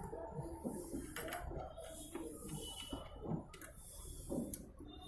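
Screws being tightened with a hand screwdriver while a replacement magnetron is fitted in a microwave oven: irregular small metallic clicks and scrapes, with a few sharper knocks.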